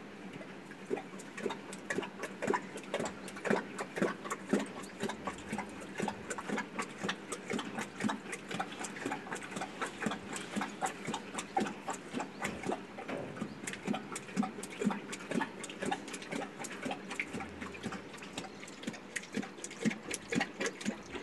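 Asiatic lioness lapping water from a stone water tank: a rapid, rhythmic train of wet laps, about three or four a second.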